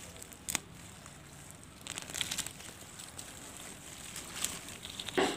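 Faint rustling and crackling of spring onion leaves and soil as the plants are grabbed and pulled up by hand, with a few short snaps: about half a second in, around two seconds in, and again near the end.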